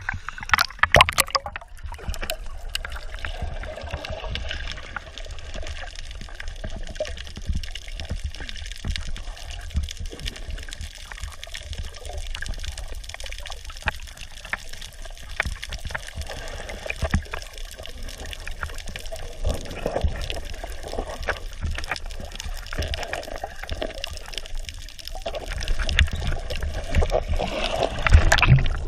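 Water splashing and sloshing in irregular small bursts, getting louder near the end.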